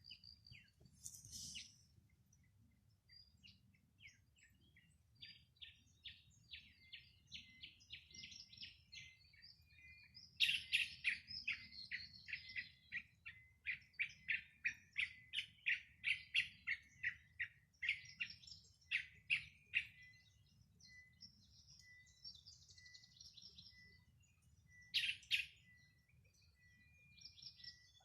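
Wild birds singing and chirping: quick runs of short repeated chirps, loudest and densest about ten seconds in, and a faint thin high note repeating steadily near the end.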